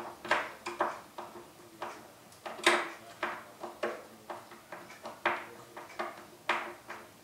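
Hand screwdriver driving a screw through a metal hinge clamp into a board: irregular metallic clicks and scrapes with each turn, the loudest about two and a half seconds in.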